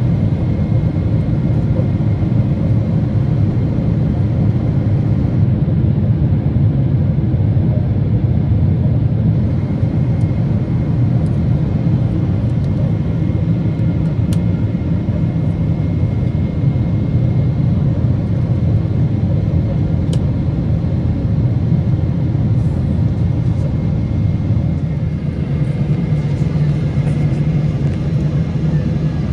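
Steady low rumble of a vehicle in motion, unbroken throughout, with a faint constant whine above it.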